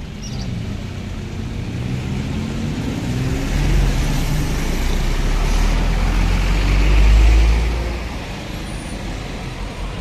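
Hino Ranger tanker truck's diesel engine and tyres passing close in traffic: a deep rumble that swells about three and a half seconds in, is loudest about seven seconds in, then eases off.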